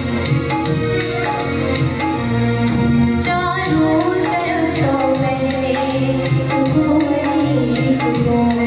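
Music from a song: held melodic lines over a steady beat of hand-drum and jingle percussion.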